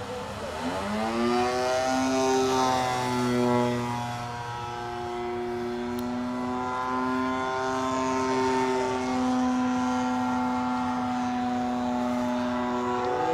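Gasoline engine and propeller of a giant-scale RC Piper J-3 Cub model running in flight overhead, a steady drone whose pitch rises about a second in and then holds level.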